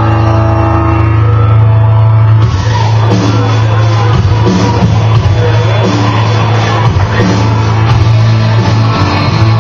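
Loud rock music with singing, likely a wrestler's entrance theme. About two and a half seconds in, held opening tones give way to the full band.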